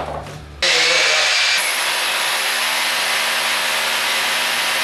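Electric power drill running continuously under load, drilling overhead into the ceiling to fix the garage door's track. It starts abruptly just over half a second in, with a high whine joining about a second later.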